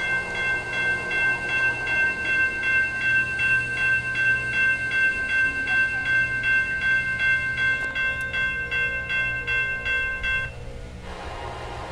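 Railroad crossing warning bell ringing about three strikes a second, then stopping about ten and a half seconds in, as the crossing bell falls silent once the gates are down. A low steady rumble of the approaching train follows.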